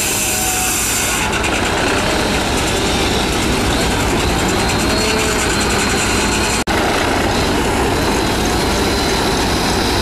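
Old-time sawmill running loud and steady, its circular saw cutting a log while sawdust is blown out through the chute. The noise breaks off for an instant about two-thirds of the way through.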